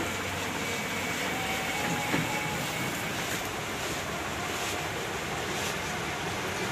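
Steady rushing background noise with no clear single source, and a couple of faint thin whistling tones partway through.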